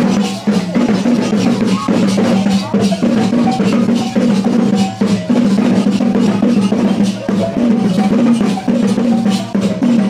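Traditional Dayak Maanyan percussion music playing: repeated drum strokes over steady, ringing low tones that step between pitches.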